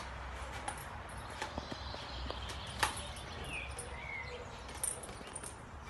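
Kittens clambering over a person's clothes, their claws making many small scattered ticks and scratches, with two faint short high squeaks about halfway through.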